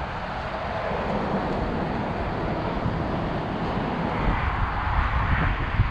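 Wind gusting, a steady rushing noise with low buffeting rumble on the microphone that grows stronger about four seconds in.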